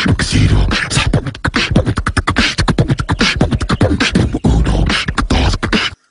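Fast beatboxing: a voice making rapid percussive clicks and bass-drum-like thumps, which stops abruptly near the end.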